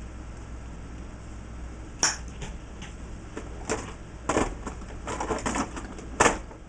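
Tools and small metal hardware being handled on a workbench during assembly: a run of sharp clicks and clatters starting about two seconds in, loudest at the first and the last knock.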